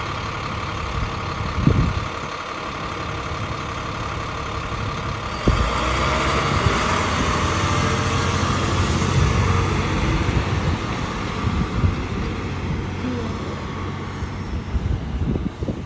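School bus engine idling at the curb, then pulling away about five seconds in with a sudden rise in engine noise, fading as the bus drives off.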